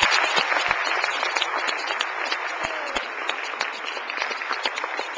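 Audience applauding: many hands clapping at once in a dense, even patter, easing off slightly as it goes on.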